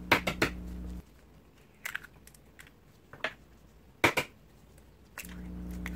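Eggs being cracked open over a mixing bowl of chopped vegetables: a few sharp taps and cracks, the loudest about four seconds in. A low steady hum runs in the first second and comes back near the end.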